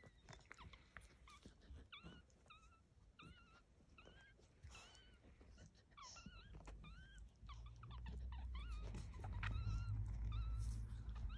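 Five-day-old newborn puppies squeaking as they push in against their mother: a run of short, high squeaks, each rising then falling, two or three a second. A low rumble comes in about halfway through and grows louder.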